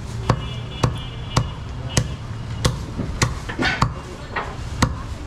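Cleaver chopping goat meat in a steady rhythm, a sharp strike about every half second.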